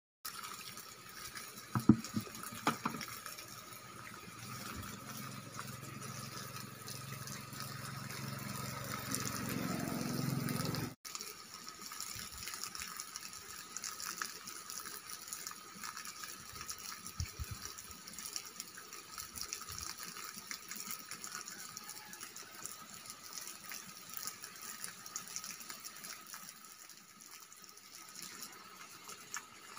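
Water pouring from a pipe spout into a plastic bucket and splashing, growing louder for the first ten seconds or so, with two sharp knocks near the start. It breaks off suddenly about eleven seconds in and resumes as a steadier running-water sound.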